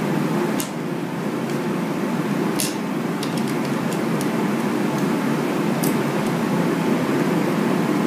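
Faint scattered clicks of a screwdriver and small screws as a hard drive is screwed into a NAS drive tray, over a steady background noise.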